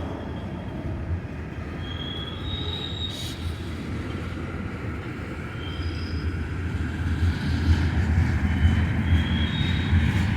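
Freight train cars rolling slowly past: a steady low rumble that grows louder over the last few seconds, with brief faint wheel squeals now and then.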